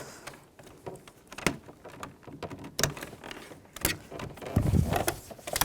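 Sharp plastic clicks and taps as a small pry tool works at the plastic door-panel parts, with a heavier stretch of handling noise about four and a half seconds in.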